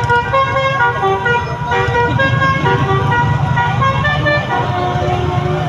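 Telolet multi-tone horn tooting a quick tune of short changing notes, over the steady low rumble of the bus's engine.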